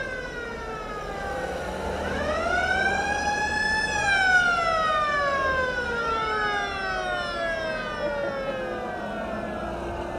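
A siren winding up and down: it falls, climbs again about two seconds in, peaks around four seconds and then slowly falls away, with a second, fainter rise around six seconds.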